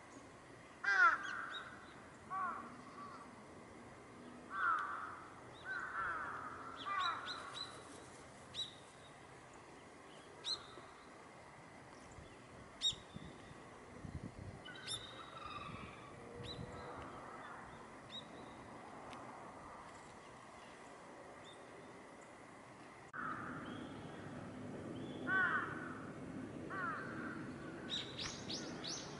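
A flock of gulls and crows calling: repeated harsh caws and cries, some in quick runs of several, with a few short high chirps among them.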